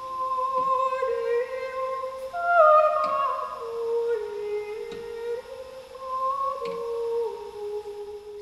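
Background music: a slow melody of long held notes, stepping and gliding between pitches, with a humming, voice-like sound.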